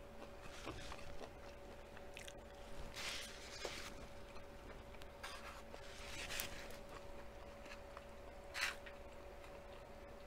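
Soft chewing and mouth sounds of a person eating close to the microphone, in several short, soft bursts spaced a second or two apart. A faint steady hum lies underneath.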